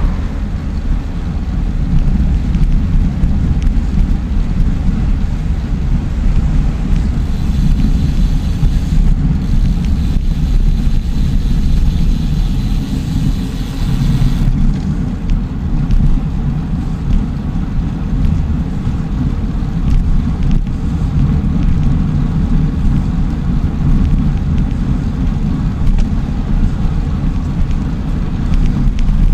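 Steady low rumble of wind on the microphone and road noise from a bicycle ridden at speed. A brighter hiss swells for several seconds midway.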